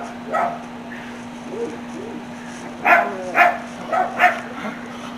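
A dog barking in short, separate barks: one just after the start, then a run of about five from around three seconds in.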